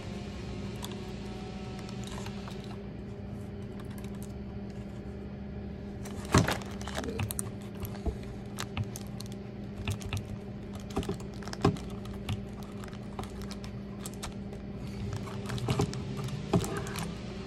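Irregular plastic clicks and rattles of a wiring-harness connector being handled and pushed into the socket on the back of a car radio head unit. The clicks start about six seconds in, the loudest one first, over a steady low hum.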